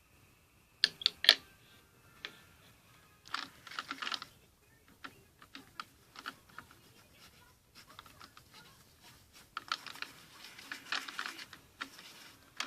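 Irregular clicking and scraping of a utensil against a container as hand-soap slime is stirred with paint coloring. A few loud clicks come about a second in, with denser bursts of clicking later.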